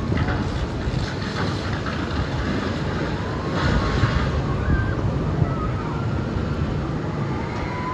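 Water rushing and splashing around a rocking-boat water ride, with heavy wind buffeting on the microphone; a louder surge of spray about halfway through.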